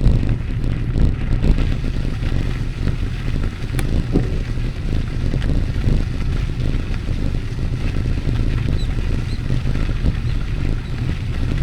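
Steady low rumble of riding along a path: wind buffeting the microphone mixed with vehicle and road noise.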